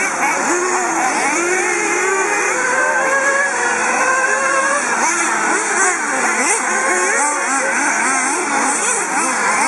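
Several 1/8-scale nitro RC buggies racing, their small engines revving up and down in overlapping, constantly rising and falling whines.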